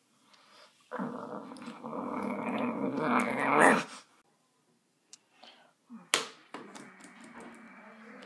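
A rough, low buzzing noise swells for about three seconds and then cuts off abruptly. A couple of seconds later there is a sharp click, then a few light clicks of keys being pressed on a flip phone.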